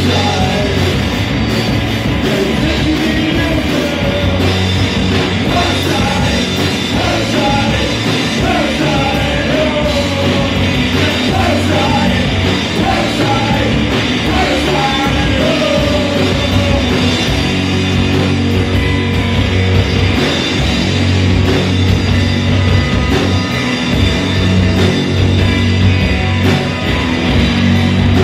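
Live rock band playing loud rock music on electric guitars and drums.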